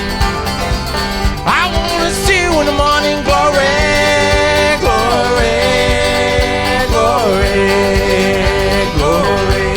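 Live bluegrass-style band music with banjo and guitar picking a steady rhythm under a melody of long held notes that slide from one pitch to the next.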